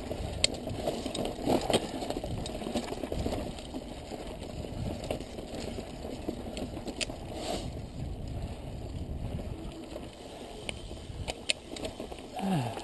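Mountain bike riding slowly over loose rock and roots: a steady noise of tyres rolling on gravel and scree, with scattered sharp clicks and knocks from stones and the bike. Near the end, a short falling vocal sound from the rider.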